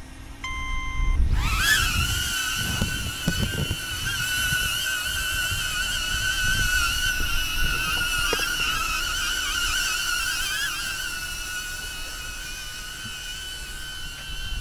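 HoverAir X1 mini drone taking off from a hand: a short electronic beep, then about a second in its propellers spin up with a sharply rising whine that settles into a steady high hover whine, wavering slightly. Wind rumbles on the microphone underneath.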